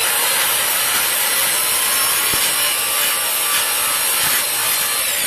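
Skil handheld circular saw, mounted upside down as a makeshift table saw, running at full speed with its steady high motor whine during its first test cut. The whine begins to drop near the end as the saw winds down.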